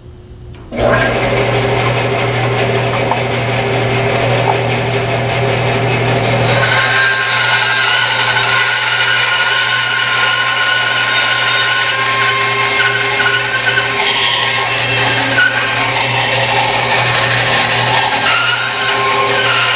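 Bandsaw switched on about a second in; the motor and blade run steadily with a low hum. From about seven seconds in, the blade is resawing a board lengthwise down its middle, and the sound shifts to a higher cutting tone that holds steady.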